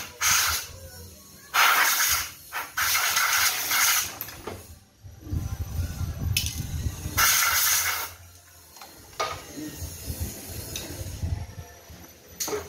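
Compressed air from a blow gun on a hose, hissing in four short blasts of a second or less, blowing out a chainsaw on the workbench.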